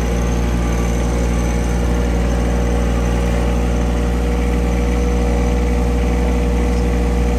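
A vehicle engine running steadily at a constant speed, with a deep hum and a steady higher tone over it.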